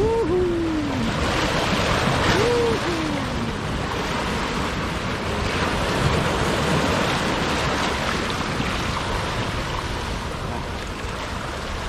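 Ocean surf breaking against and washing over the boulders of a rock jetty, a steady rushing wash that swells and eases.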